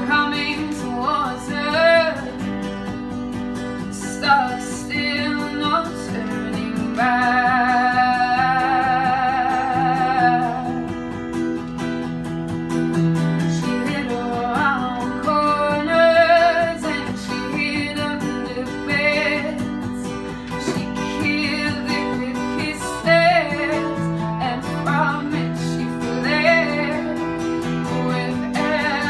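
A woman singing live over a strummed acoustic guitar, holding one long note with vibrato about seven seconds in.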